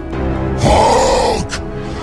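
Dramatic background music with a loud roaring yell about half a second in, lasting under a second, as the man transforms into the Hulk.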